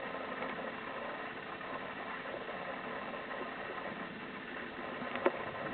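Machinery running with a steady hum, and a single sharp click about five seconds in.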